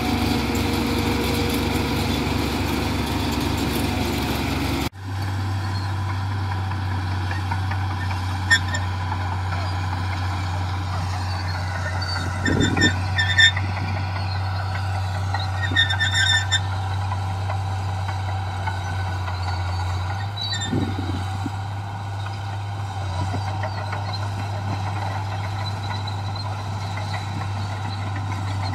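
Diesel engine of a heavy earthmoving machine running steadily with a low drone. The sound changes abruptly about five seconds in, and a few short, high-pitched chirps come through around the middle.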